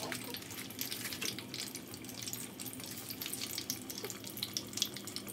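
Mini martabak pastries deep-frying in a pot of hot oil: a steady sizzle peppered with fine crackles and pops.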